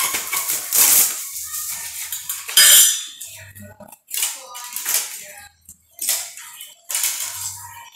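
Plastic fan blade and wire fan guard being handled, clattering and rattling irregularly against each other and the floor, with the loudest clatter about three seconds in.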